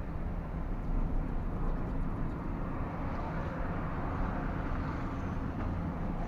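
MAN TGS 33.480 truck's diesel engine running steadily as a low drone, with road noise, heard from inside the cab while the truck moves slowly in traffic.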